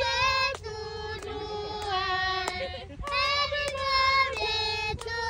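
Children singing a birthday song in long held notes, with hand claps keeping time about every half second.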